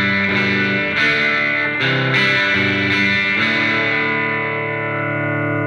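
Electric guitar chords from a 1987 Gibson Les Paul 1959 Reissue through a hand-wired Marshall JTM45 Plexi clone head with KT66 valves and a 1x12 cabinet. Several chord changes come in the first half; from about halfway one chord is left to ring, while the amp's normal channel volume is turned up and the tone gets bassier.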